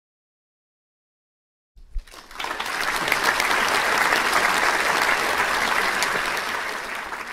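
Silence for about two seconds, then a short thump and a crowd applauding, dense clapping that holds steady and fades out near the end.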